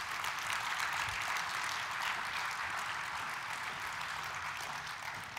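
Audience applauding: many hands clapping in a dense, steady wash that eases slightly near the end.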